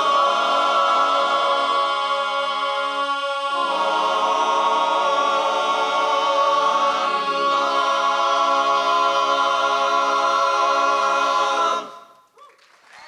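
Men's barbershop chorus singing a cappella in close four-part harmony, holding the song's final long chords. The chord shifts twice, the bass stepping lower each time, and the voices cut off together near the end.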